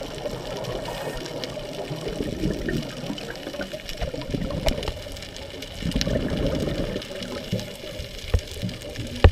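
Scuba divers' exhaled regulator bubbles gurgling underwater, swelling in bursts with each breath out, with a few sharp clicks near the end.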